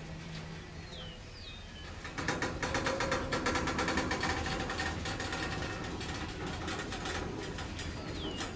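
Freight train boxcars rolling past, a dense clatter of rapid clicks and rattles from the wheels and car bodies on the rails. It gets markedly louder about two seconds in and stays loud.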